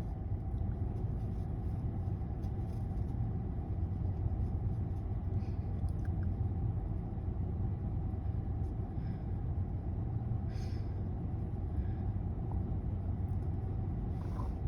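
Steady low background rumble with a few faint short sounds over it, the clearest about ten and a half seconds in.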